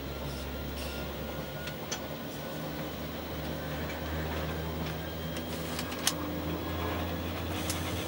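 Train running slowly out of a station as heard from the cab: a steady low hum from the locomotive, with a few sharp clicks as the wheels pass over points.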